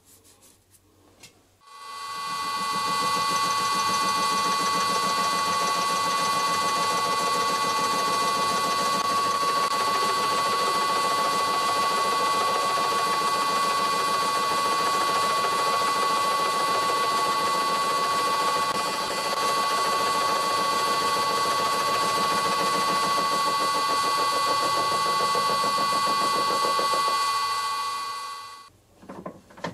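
Vintage lathe driving an 80 mm shell face mill with carbide inserts through a face-milling pass on a metal block. A loud, steady cutting sound with a sustained high ringing whine starts about two seconds in and stops near the end.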